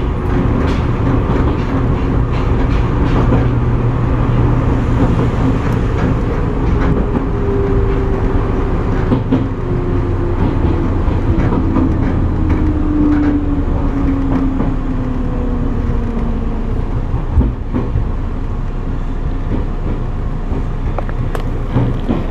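Izu Hakone Railway 13000 series electric train running, heard from inside: a steady rumble of wheels on rail with scattered short clicks and one sharper knock about seventeen seconds in. A motor whine slides down in pitch from about eight to seventeen seconds in as the train slows.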